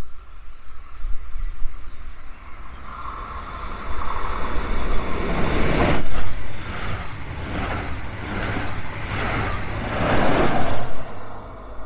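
Double-deck regional express push-pull train passing through at speed, its electric locomotive pushing at the rear. A rising rush of wheels on rail with a regular clatter as the wheelsets go by, loudest about six seconds in and again as the locomotive passes near the end, then falling away suddenly.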